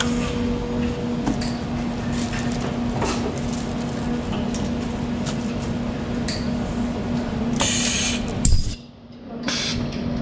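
Ultrasonic plastic welding press cycling to weld a display's two-part plastic case shut, over a steady low machine hum and small handling clicks. Near the end there is a burst of air hiss, then a loud clunk with a brief very high-pitched whine, then another short hiss.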